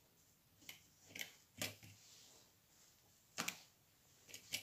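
Faint handling noises: a few short clicks and rustles as a needle and nylon thread are worked through the holes of a metal clasp purse frame to sew it onto a crochet bag, the loudest near the middle.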